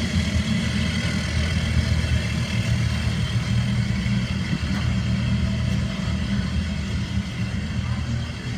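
Triple Mercury Verado 300 hp supercharged outboard motors running steadily, with a low exhaust note from the sport exhaust option that routes the exhaust up and out the top for more noise.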